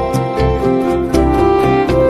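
Instrumental background music with sustained melody notes over a steady beat.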